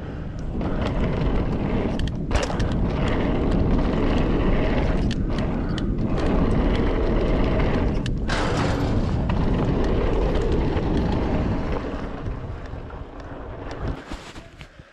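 Mountain bike tyres rolling and rumbling over a steel grate deck, mixed with wind buffeting the camera microphone. The noise fades near the end as the bike slows to a stop.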